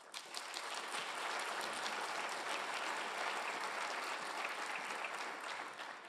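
Audience applauding: many hands clapping in a steady patter that starts at once and dies away near the end.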